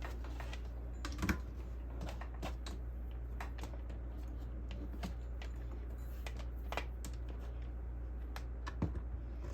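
Light, irregular clicks and taps from handling the animatronic's plug and wiring, over a steady low hum.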